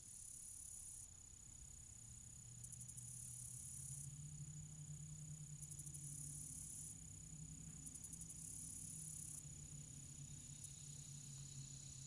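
Faint chorus of singing insects: a steady high drone, with bursts of rapid pulsing buzz about a second long every couple of seconds, over a low steady hum.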